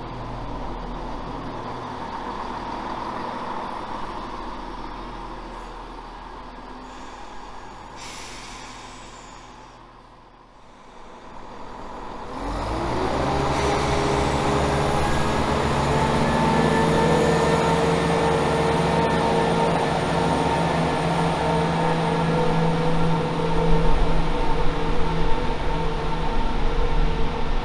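CrossCountry Class 170 Turbostar diesel multiple units. First a unit's running noise fades away. Then, about twelve seconds in, another unit's underfloor diesel engines start up with a rising hum and hold a steady run as it pulls away, getting louder and rougher near the end.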